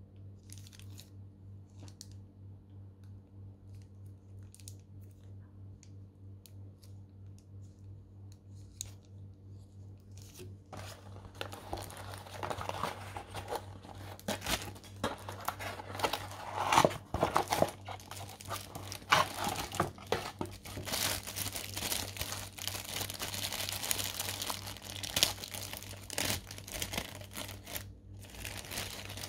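For about the first ten seconds, a few faint clicks over a low steady hum. Then a thin clear plastic bag is handled and pulled open, giving dense crinkling with several sharp crackles.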